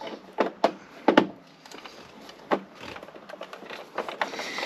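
A few sharp clicks and knocks from hands and a tool working at the star-head fittings behind a caravan fridge's plastic front panel. Three come close together in the first second or so, then one softer knock about two and a half seconds in.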